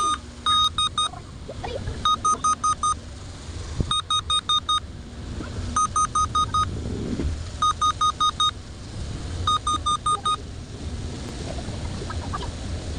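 Dell Intel Core i3 laptop beeping: bursts of several short, high-pitched beeps repeating about every two seconds, stopping about ten seconds in. A repeated beep pattern like this at power-on is the laptop's hardware or system warning code.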